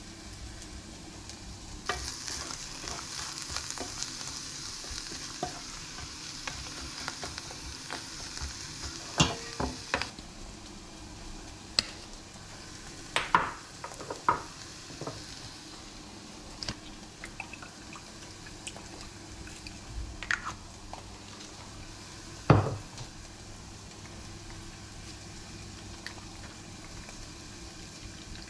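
Vegetables frying in a pan with a steady sizzle, most noticeable for the first third, with a scattering of kitchen knocks and clatter from utensils and board; the loudest is a heavy thump about three-quarters of the way through.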